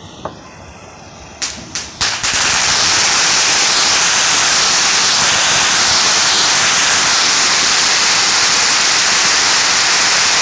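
Three sharp pops, then a ground fountain firework spraying sparks with a loud, steady hiss.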